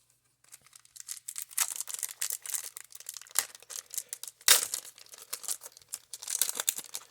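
Crinkling and rustling of a baseball card wax pack's paper wrapper and cards being handled, with one sharp crackle about four and a half seconds in.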